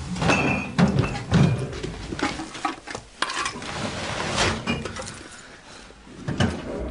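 Glass bottles clinking and knocking together in an irregular clatter, with several louder knocks in the first second and a half and a brief ringing clink near the start.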